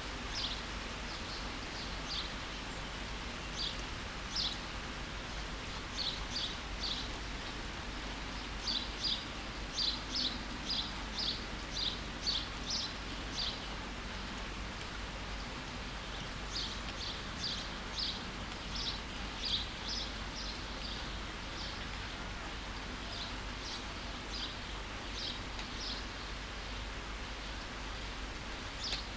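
Steady rain falling, with a bird repeating short, high chirps in quick runs that pause briefly about halfway through.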